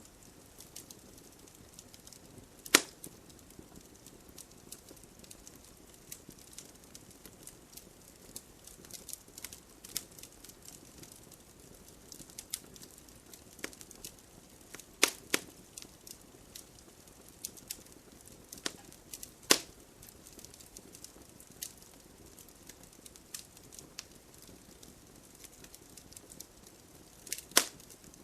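Campfire burning wood, crackling steadily under a low hiss, with scattered sharp pops now and then, the loudest about three seconds in, around halfway, and near the end.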